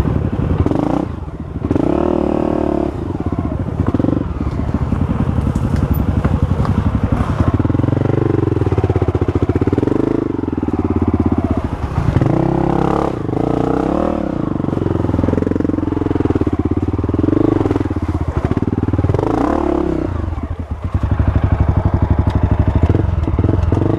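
Honda CRF 250F's single-cylinder four-stroke engine running under the rider, its revs rising and falling with the throttle as the bike picks through a tight, rutted trail.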